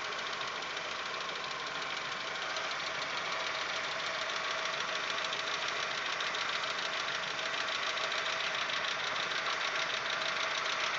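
Audi 1.8-litre 90 hp four-cylinder petrol engine idling warm with a fast, steady ticking knock from the valvetrain, growing slowly louder. The owner takes it for noisy hydraulic lifters, though fitting other lifters did not change it, and wonders whether his 15W-40 oil is to blame.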